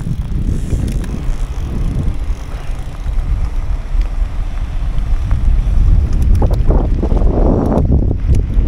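Heavy wind buffeting the microphone on an open inflatable boat under way in a strong current, with water rushing along the hull; the rushing grows rougher about two thirds of the way through.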